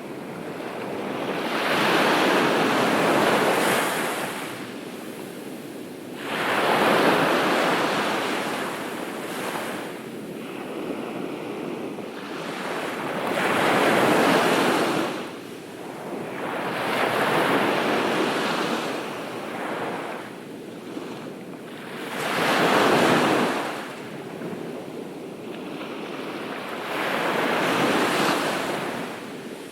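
Ocean surf on a beach: waves breaking and washing in, each one swelling and then fading, about six surges a few seconds apart.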